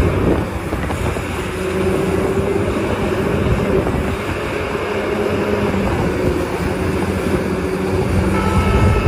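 Large Caterpillar hydraulic excavator's diesel engine running steadily under load as it loads soil into a dump truck, a dense, even engine noise with a faint steady hum.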